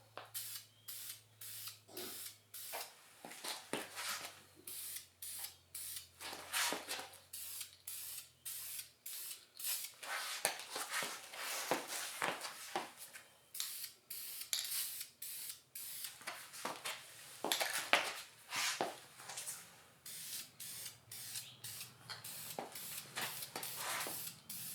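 Aerosol can of VHT wrinkle paint spraying in many short hissing bursts, about one or two a second, laying on a coat of paint.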